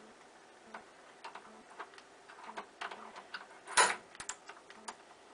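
A nail set tapping the head of a bump key in a Schlage pin-tumbler deadbolt: light metallic clicks and taps, and one sharp, loud strike about four seconds in. The bump doesn't open the lock on this try.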